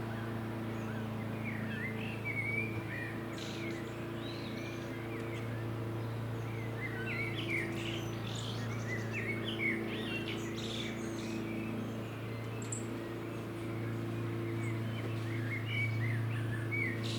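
Small birds chirping and twittering in short, scattered calls, over a steady low hum.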